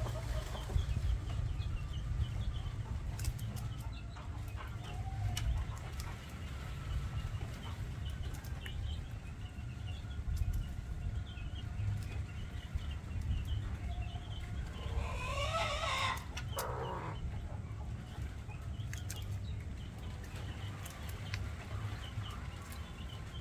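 Chickens clucking and calling softly, with one louder drawn-out call that rises and falls about fifteen seconds in, over a steady low rumble.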